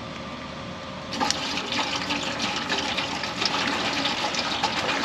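Water poured from an upturned plastic bottle into a large aluminium steamer pot, splashing into the wine and vinegar already in it; the pouring starts about a second in and keeps going irregularly.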